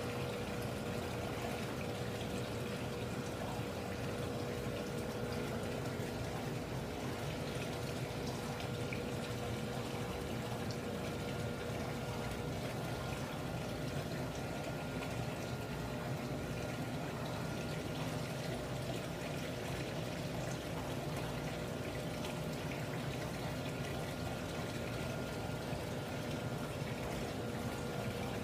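Aquarium water pouring and trickling steadily, as from a running filter, with a steady electric hum underneath.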